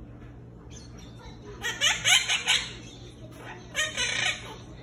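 Quaker parrot (monk parakeet) making a quick run of short, loud chirps and squawks about a second and a half in, then a second burst near the end.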